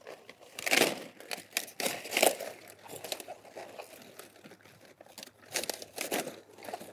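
Cabbage leaves crinkling and tearing as a head of cabbage is handled and cut free with a long knife, in irregular bursts. The loudest come a little under a second in and just after two seconds.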